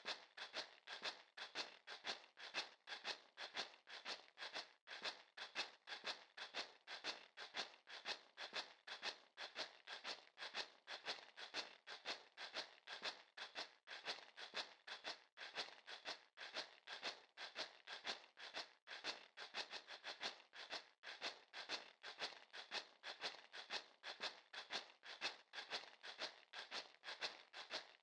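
Faint, steady rhythm of short scratchy strokes, about three a second.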